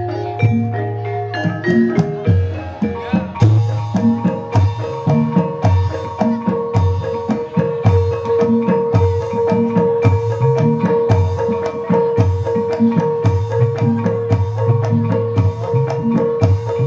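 Javanese gamelan music for an ebeg (kuda lumping) horse dance: drum strokes keep a steady beat under struck tuned metal notes. A long held note comes in about three seconds in and carries on over the rhythm.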